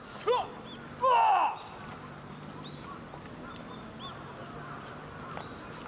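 Two kiai shouts from the jojutsu performers: a short cry rising in pitch, then a longer, louder one falling in pitch about a second in. Faint bird chirps follow, with a faint knock near the end.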